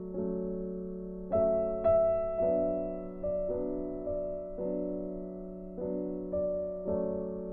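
Background music: a slow, gentle piano tune, its notes struck and left to fade.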